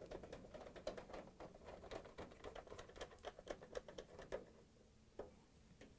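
Faint, quick clicking and scraping of a driver turning screws into the dryer console's sheet-metal rear cover. It stops about four and a half seconds in, with one last click a little later.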